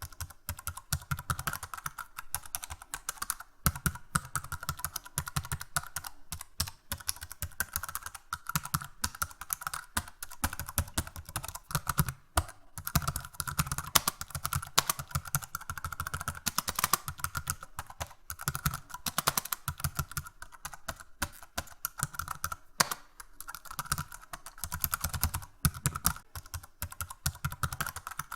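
Fast, hard typing on a computer keyboard: a dense, irregular stream of key clicks with occasional heavier strikes standing out.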